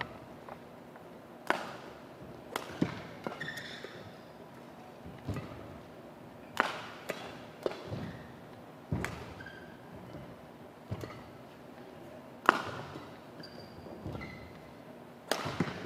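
Badminton rackets striking the shuttlecock back and forth in a rally, a sharp hit every second or two with the loudest near the end, and short squeaks of court shoes on the floor between hits.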